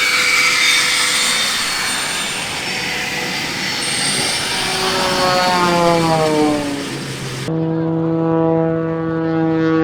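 SIAI-Marchetti S-211 jet trainer passing, a jet roar with a whine that drops in pitch as it goes by. After a sudden cut about seven and a half seconds in, an aerobatic plane's propeller engine drones steadily.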